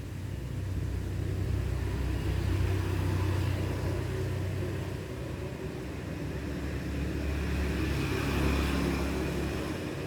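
Low rumble of passing road traffic, swelling and fading twice.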